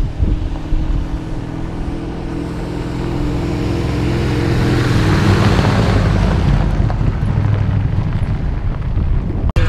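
A 1966 Ford F250's 390 FE V8 running as the pickup drives up a gravel road and passes close by. The steady engine note gives way about halfway through to a louder rush of tyres on gravel as the truck goes by.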